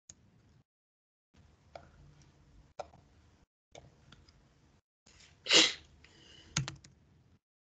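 Scattered computer keyboard and mouse clicks as an equation is typed, over a faint hum that cuts in and out. About five and a half seconds in comes one short, loud burst of noise, the loudest sound here.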